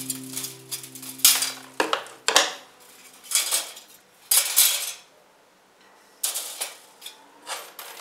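Sheet-metal foundation vent rattling and scraping as it is handled and its metal screen pulled apart: clattering metal in irregular bursts with short quiet gaps.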